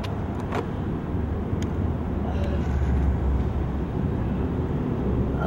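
Steady low rumble of outdoor city ambience, with a few faint short clicks.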